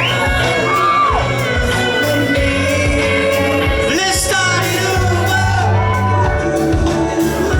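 Rock band playing live in a concert hall: drums, bass and guitars under a voice singing long, wavering notes.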